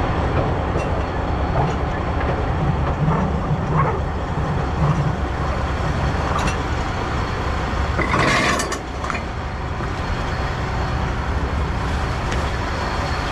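Cargo straps being handled and loosened on a flatbed trailer, with a few light clicks and knocks and a short rasping rush about eight seconds in, over a steady low rumble.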